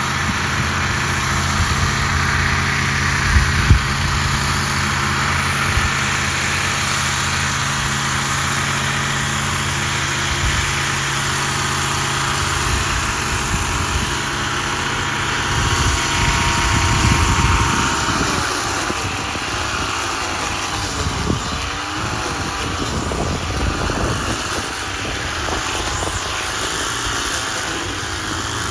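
An engine running steadily; from about two-thirds of the way in, its speed rises and falls repeatedly.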